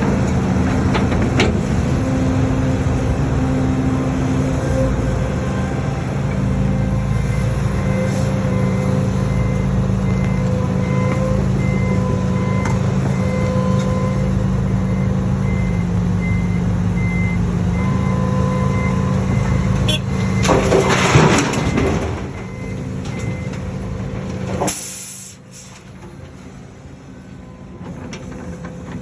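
Heavy diesel engine of a Hidromek HMK230LC excavator running steadily under load, its drone shifting pitch a couple of times, with a faint repeated beep behind it. About 21 s in comes a loud rush of noise, and near 25 s a short sharp hiss, after which the engine sound drops to a quieter level.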